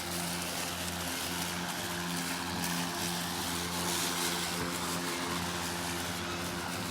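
EGO 22-inch 56-volt cordless electric lawn mower running steadily, a level hum from the motor and spinning blade with a hiss of cutting noise over it.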